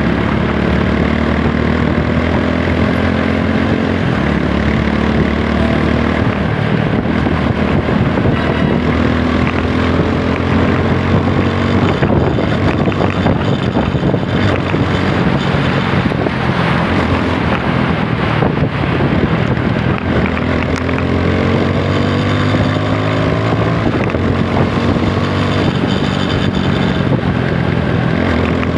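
Single-cylinder engine of a TVS Apache 160 4V motorcycle running under way, its pitch climbing in long rises twice as it accelerates, with wind noise on the helmet-camera microphone.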